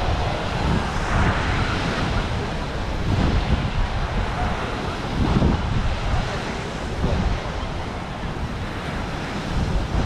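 Ocean surf washing onto the beach, heard as a steady rushing noise, with wind buffeting the microphone and adding an uneven low rumble.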